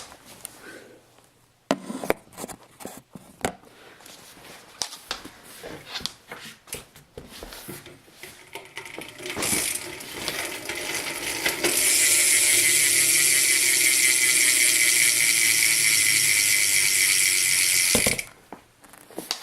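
BMX rear hub freewheel ratcheting loudly as the rear wheel spins. Scattered clicks at first, then a dense steady buzz of pawl clicks for about six seconds, pitch sinking slightly, cutting off suddenly near the end.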